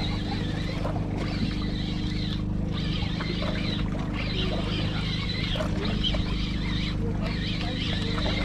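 Boat engine running steadily, a low even hum, under a rushing hiss of sea water that dips briefly every second or two.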